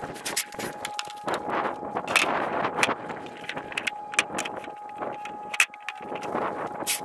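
Wind buffeting the microphone, with scattered sharp knocks and scrapes as a sheet of AdvanTech subfloor panel is set down on wooden floor joists and walked across. The loudest knock comes near the end.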